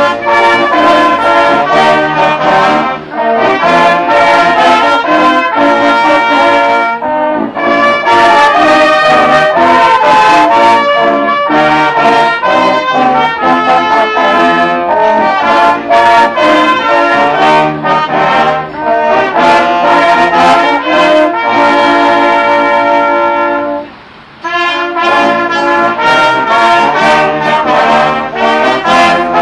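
Brass ensemble of trumpets, trombones and a tuba playing a piece together, with one brief pause near the end before the playing resumes.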